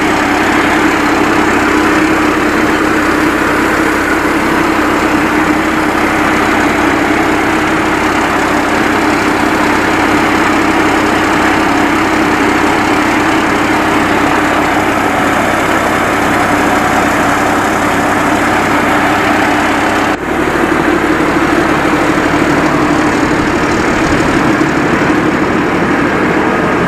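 Combine harvester engine running steadily under load, with a brief break about 20 seconds in.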